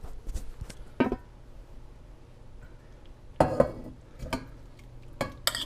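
Dishes and a saucepan clinking and knocking as cloudberries are put into the pot: a single knock about a second in, then several sharp taps and clinks from about three and a half seconds on.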